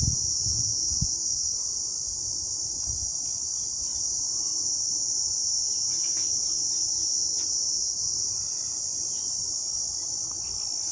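Steady, high-pitched chorus of insects such as crickets or cicadas, unchanging throughout, with a few low thumps in the first second.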